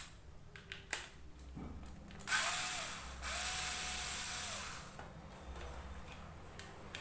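Handheld electric drill-driver opening a washing machine gearbox casing, run in two bursts, a short one and then one of about two seconds. Its motor whine rises as it spins up and falls as it stops. A couple of sharp clicks come in the first second.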